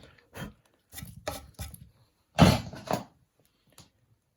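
Chisel paring and scraping the wood at the back of a hinge recess in short strokes, then a louder knock about halfway through with a lighter one just after.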